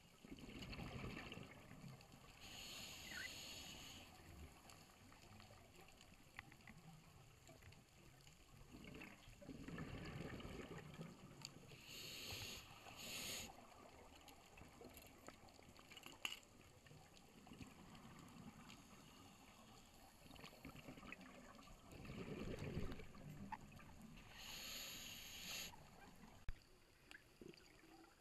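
Scuba regulator breathing heard underwater, three breath cycles: each a low, rumbling rush of exhaled bubbles followed a second or two later by the hiss of an inhalation through the demand valve.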